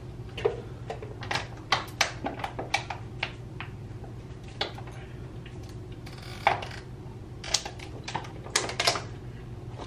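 Thin plastic water bottle crackling and popping as it is squeezed and crumpled while someone drinks from it: irregular sharp clicks, a few at a time, over a steady low hum.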